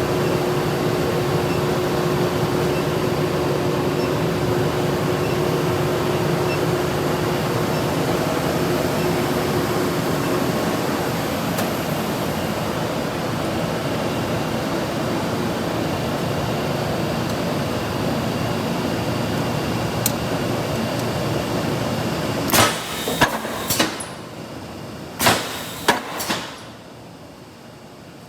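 Steady loud shop machinery noise, with a faint steady tone through the first part, then about six sharp, ringing blows over roughly four seconds as hot S7 tool-steel blocks are forged into dies.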